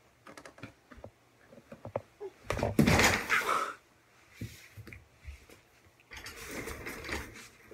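A person falling off a bed onto a hard floor. Light rustles and taps come first, then about two and a half seconds in a heavy thump with a second-long rustle of blanket and clothing. Quieter rustling of her moving comes near the end.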